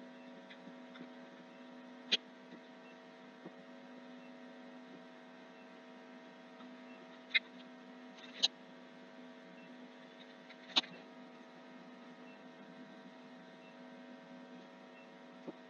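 Steady low electrical hum with four short, sharp mouse clicks: one about two seconds in, two close together around seven and eight seconds, and one near eleven seconds.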